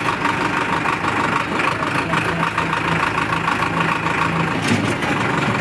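Powertrac tractor's diesel engine running steadily under way.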